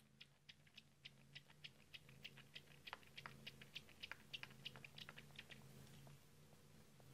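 Few-days-old kitten suckling from a feeding bottle's teat: a quick, faint run of wet sucking clicks, about four or five a second.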